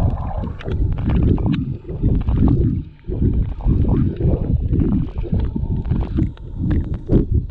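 Water moving against a GoPro Hero 7 held under the surface while snorkelling: a muffled low rushing and sloshing that comes in uneven pulses, with scattered small clicks.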